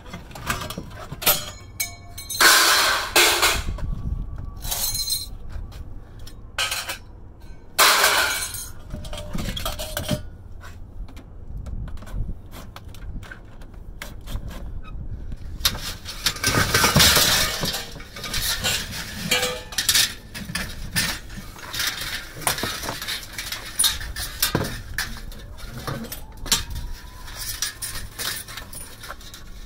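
Scrap metal being handled: sheet metal and other pieces clanking, clinking and scraping against each other, with several louder crashes as heavy pieces are moved and dropped.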